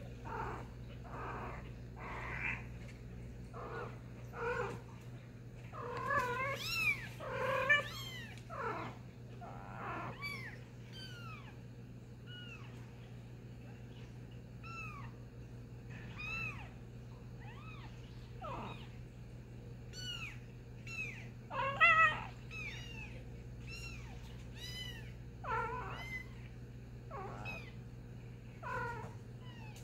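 Very young kittens mewing: a string of short, high-pitched cries that rise and fall, coming every second or so, with a louder pair about two-thirds of the way through. A steady low hum runs underneath.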